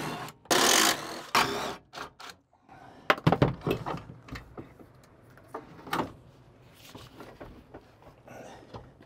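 Short noisy bursts near the start, then scattered clicks and knocks of hand tools and metal parts being handled during truck disassembly.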